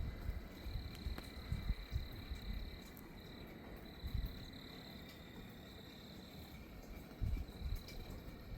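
Gusty wind buffeting the microphone in low rumbling bursts, strongest about a second in and again near the end. Behind it, a steady high-pitched trilling chorus keeps going with brief breaks.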